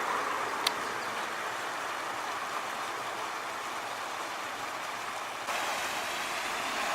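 Steady rush of water from a small stream waterfall, with one sharp click about a second in. The hiss turns suddenly brighter and louder near the end.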